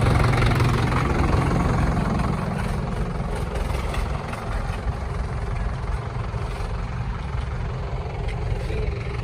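Tractor diesel engine running steadily with a low, even sound, easing slightly about two seconds in.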